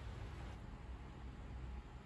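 Faint room tone: a steady low rumble with a light hiss, with no distinct sounds standing out.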